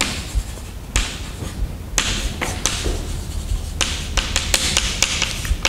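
Chalk writing on a blackboard: a quick run of sharp taps with short scratching strokes between them.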